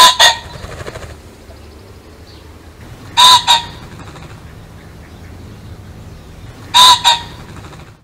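Pheasant calling: a harsh two-note call, given three times about three and a half seconds apart, over a steady low hum.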